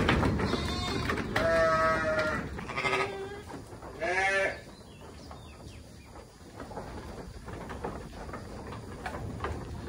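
Livestock bleating: about four quavering calls one after another in the first half, then quieter.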